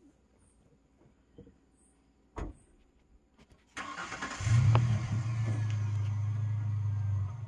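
Pickup truck engine starting about four seconds in: a short crank, then it catches and idles steadily. A faint knock comes before it, about two and a half seconds in.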